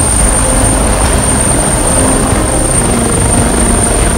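AgustaWestland AW139 twin-turbine helicopter hovering and manoeuvring low and close: loud, steady beat of its five-bladed main rotor over a constant high-pitched turbine whine.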